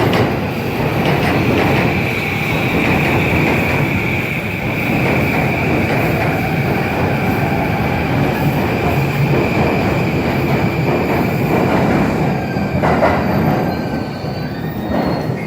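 JR electric commuter train moving along the platform, its wheels rumbling and giving off a steady high squeal that slowly drops in pitch and fades about twelve seconds in.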